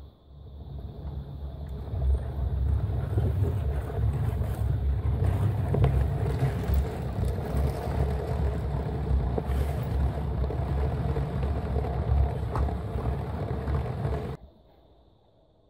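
LEGO train running past close by on plastic track: a steady low rumble of wheels and motor with a few faint clicks. It builds over the first two seconds and stops abruptly about a second before the end.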